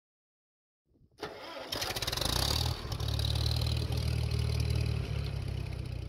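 An engine cranked by its starter for about half a second, catching a little under two seconds in, and then running steadily with a low rumble.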